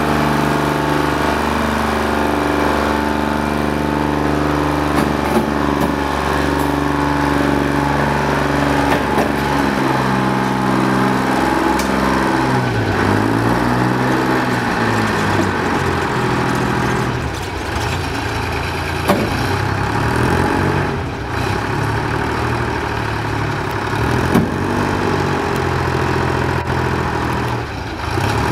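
Diesel engine running at idle. Its pitch sweeps down and back up about halfway through, and again briefly near the end.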